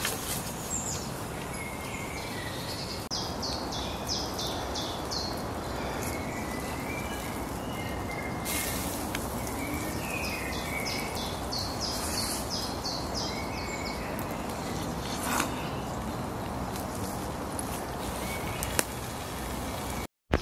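A songbird singing two phrases of quick repeated high notes, about three seconds and ten seconds in, over a steady rushing background noise, with a few sharp clicks.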